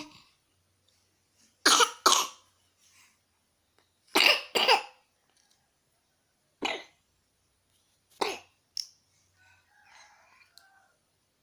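A young child coughing: two double coughs, then single coughs a couple of seconds apart.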